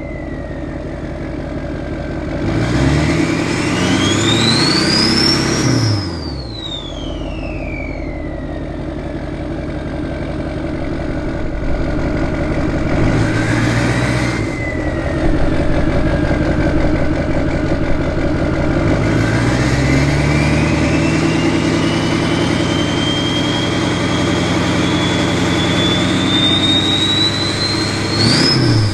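LLY Duramax 6.6-litre V8 turbo-diesel with a 64mm turbo, revved three times: a rev of a few seconds, a short blip about halfway, and a long held rev that drops off near the end. The turbo's high whistle climbs with each rev, peaking sharply, and slowly winds down after each one.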